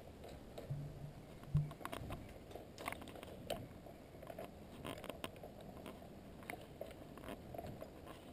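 Faint, scattered clicks and light scrapes of small metal parts handled by hand: stainless bolts and nylock nuts being fitted to steel indicator brackets.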